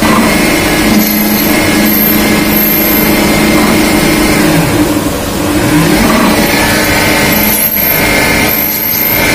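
CNC machine cutting an engine valve, its motor and spindle running with a steady, loud whine of several held pitches, with coolant splashing over the work. The machine's tone steps up right at the start and shifts a little about halfway and again near the end.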